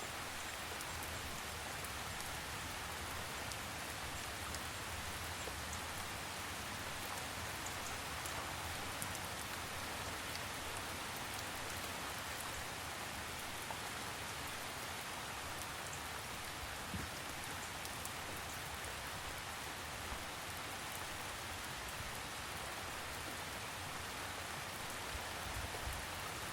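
Steady rain falling, an even hiss with fine patter of individual drops.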